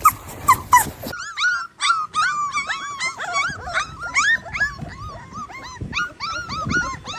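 Puppies whimpering and yipping: a rapid, overlapping run of short, high, squeaky cries, several a second. About a second in the sound changes abruptly, from a few sharp yelps to the steady string of whines.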